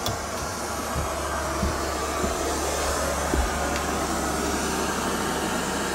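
White noise machine giving off a steady, really loud hiss, running to keep sleeping children from waking. A few soft thumps in the first half come from someone climbing carpeted stairs.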